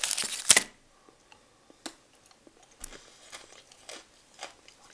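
A plastic candy-bar wrapper rustles briefly at the start, then faint, sparse crunches follow as a piece of Daim Orange, a hard almond-caramel centre in chocolate, is chewed.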